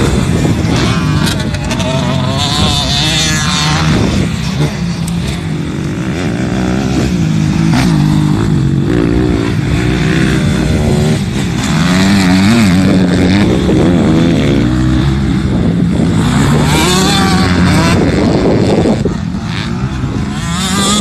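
Motocross motorcycle engine running loud at high revs, its pitch rising and falling again and again as the throttle is worked.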